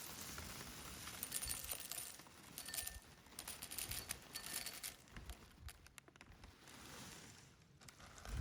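Light clicks, clinks and rustling of small objects being handled, in scattered short bursts.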